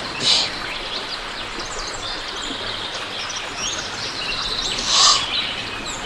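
Small birds chirping and calling over a steady outdoor background hiss, with two louder short harsh calls, one just after the start and one about five seconds in.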